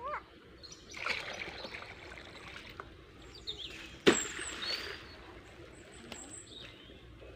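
Water trickling and dripping, then a cast net lands in the creek about four seconds in with one sharp splash, the loudest sound. Birds chirp throughout.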